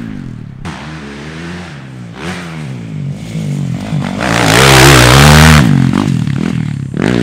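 Dirt bike engine revving up and falling off again and again as the bike is ridden around a motocross track, its pitch rising and dropping with each burst of throttle. It is loudest from about four to five and a half seconds in, with a rush of hiss over the engine note.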